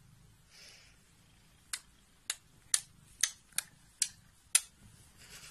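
A person kissing a cat: a series of about seven short kissing smacks, roughly two a second.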